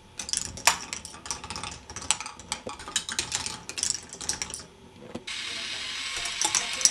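K'nex ball machine running: plastic balls clicking and clattering rapidly and irregularly along plastic track pieces. About five seconds in a steady rushing noise starts and holds for about two seconds.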